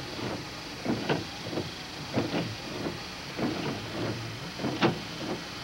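Vehicle engine running, heard from inside a vehicle cab, with a few sharp knocks about a second, two seconds and five seconds in.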